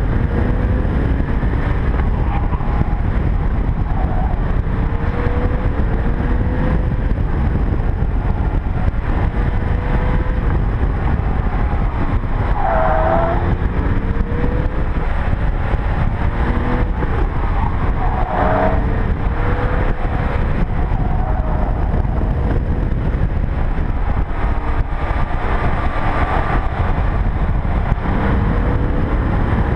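Porsche 993's air-cooled flat-six engine pulling hard through an autocross run, its pitch climbing repeatedly and dropping back as the driver accelerates, lifts and shifts. Heard through a camera mounted on the outside of the car, under heavy wind and road rumble, with two brief higher-pitched sounds about midway through.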